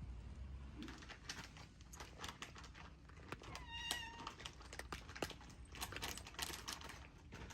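A cat meows once, a short high call about four seconds in, amid scattered light clicks and rustling.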